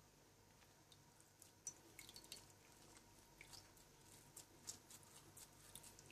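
Faint wet squelches and drips as a coffee-and-milk-soaked ladyfinger biscuit is squeezed by hand and the liquid drips back into the bowl. Scattered small drips and clicks begin about a second and a half in.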